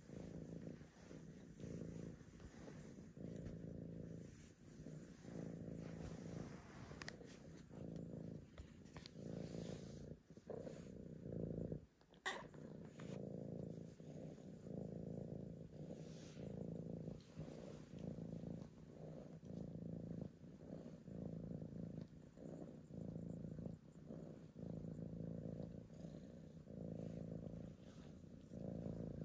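Domestic cat purring continuously while being stroked, swelling and fading in an even rhythm with each breath in and out.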